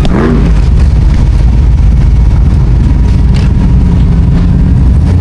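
Off-road vehicle engine running loud and steady at low revs, close by.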